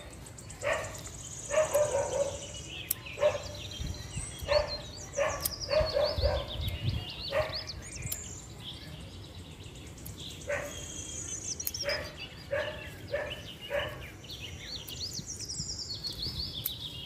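A dog barking over and over, a bark every half second to a second, with a pause of a couple of seconds in the middle; birds chirp high above it.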